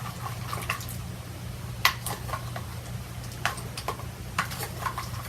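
Homemade slime with water worked into it, squished and kneaded by hand: irregular wet squelches and sticky clicks.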